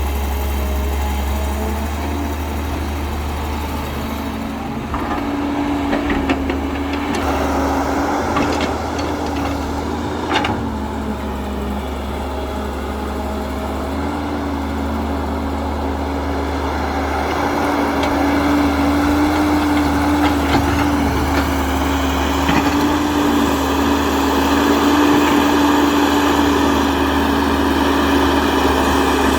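Huina 1592 remote-control excavator running: a steady engine-like hum with a motor whine that wavers slightly in pitch, a few clicks a third of the way in, and the sound getting a little louder in the second half.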